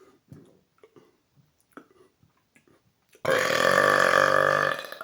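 A few faint clicks, then about three seconds in a person lets out one long, loud burp lasting about a second and a half, trailing off at the end.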